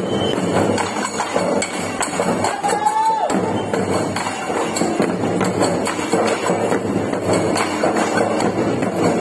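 Dollu kunitha drumming: large dollu barrel drums beaten with sticks in a dense, driving rhythm. It runs on steadily and loudly.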